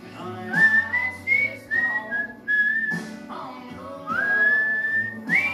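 A whistled tune of clear held notes, several sliding up into pitch, over music playing in the room.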